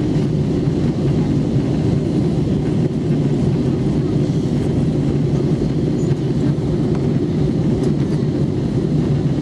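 Steady, deep cabin rumble of an Airbus A321 in flight, with engine and airflow noise heard inside the cabin by the window.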